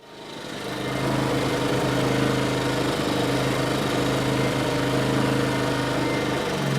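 Ryobi 1800/2300-watt portable generator's engine running steadily. It comes in suddenly and builds over the first second, and it keeps running even though the control knob is at stop. The cause is a broken wire at the knob's stop switch, so the stop circuit never closes.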